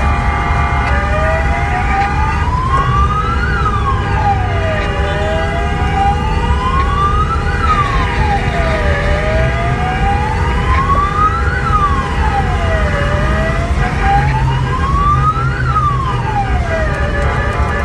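Fire engine's electronic wail siren, heard from inside the cab while the truck drives: a slow rise and a quicker fall in pitch, repeating about every four seconds, over engine and road rumble.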